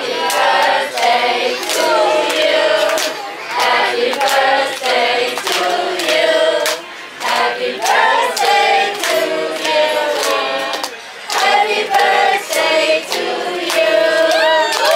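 Background music: a group of voices singing a bright melody in unison over a steady, regular beat.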